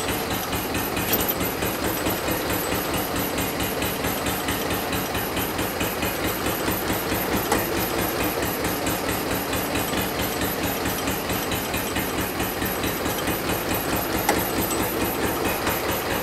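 Hanomag R16 tractor's diesel engine running steadily with an even, rapid knocking beat while it drives the hydraulic pump for a test of the rear hydraulic lift.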